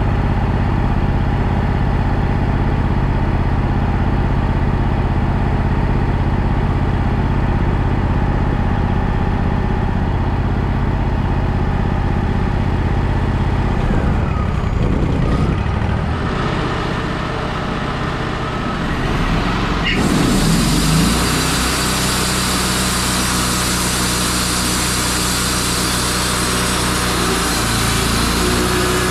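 Wood-Mizer LT35 portable sawmill's engine running steadily. About two-thirds of the way in the sound changes suddenly and gains much more hiss up high.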